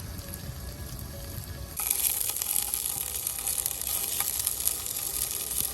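Food sizzling in a hot pan. The sizzle starts suddenly about two seconds in, as food hits the hot surface, and then keeps going loudly.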